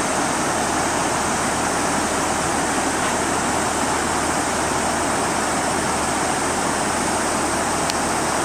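Shallow river rushing over rocky rapids: a steady, even rush of water.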